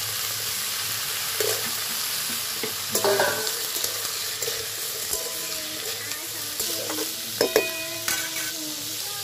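Diced potatoes and tomatoes sizzling in hot mustard oil in a metal kadai, with a metal spatula stirring and scraping against the pan every now and then.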